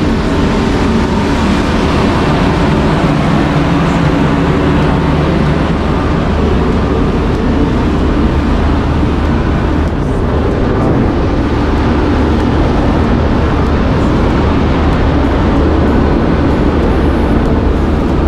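Steady, loud machinery drone aboard the passenger ship KM Dobonsolo, a low hum of several steady tones that does not let up.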